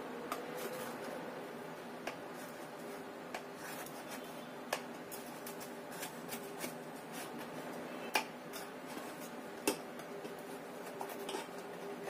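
A knife scraping and tapping against the sides of a baking dish as a baked sponge cake is loosened from the mould: scattered light clicks, with two sharper knocks about eight and nine and a half seconds in. A faint steady hum runs underneath.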